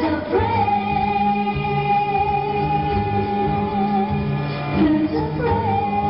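Pop song played over a hall's sound system: a singer holds long, wavering notes over a steady bass line, with a short break a little before the end.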